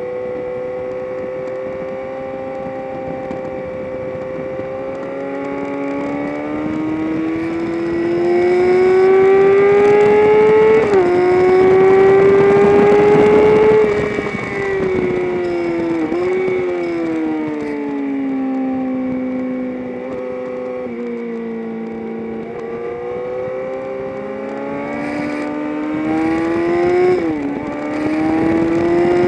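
Engine of a vehicle lapping a race track at speed, heard onboard. Revs climb through the gears with a quick upshift, then fall away under braking with downshifts and a short blip of revs, then climb again to another upshift near the end.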